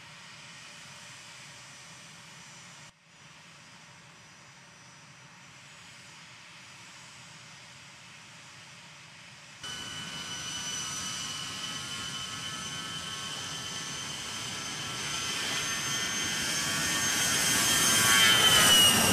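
A-10 Thunderbolt II's twin General Electric TF34 turbofans whining: quieter and steady at first, then, about halfway in, a much louder high whine that builds as the jet rolls down the highway toward the listener. Near the end its pitch drops as it passes close by.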